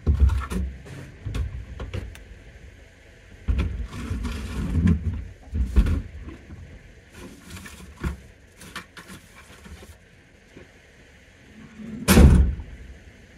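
Irregular knocks, bumps and rustling of someone moving things about in and around a vehicle, then one loud door sound about twelve seconds in.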